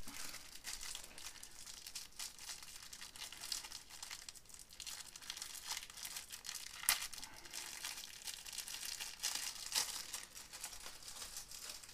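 Small plastic packet crinkling and rustling as fingers fumble at it, trying to open it and get the contents out, with scattered sharper crackles; the loudest come about seven and ten seconds in.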